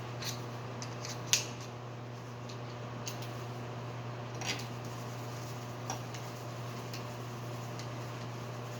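A few small, sharp clicks and taps of metal parts being handled, the loudest about a second and a half in, over a steady low hum.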